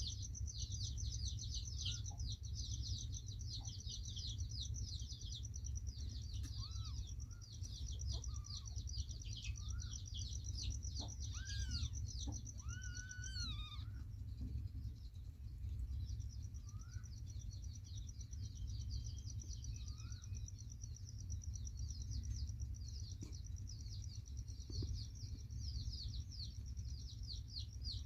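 Small birds chirping rapidly in a dense, continuous chorus over a steady high ringing note. The chorus breaks off for about two seconds about halfway through and then starts again, over a steady low rumble.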